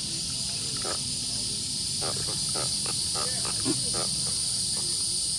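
Steady high-pitched insect chorus, with a hand-held catfish croaking in several short grunts through the middle.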